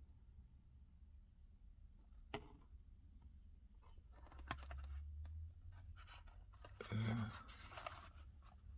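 Faint handling noise of a Hot Wheels blister card being turned over in the hands: a single sharp click about two and a half seconds in, then scratchy rustling of cardboard and plastic, with a short low murmur of voice about seven seconds in.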